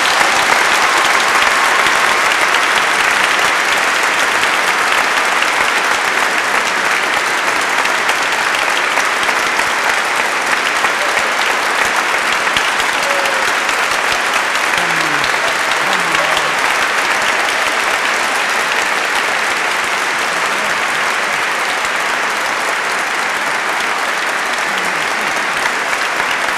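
A large crowd applauding, sustained and steady, with a few voices faintly heard over the clapping about halfway through.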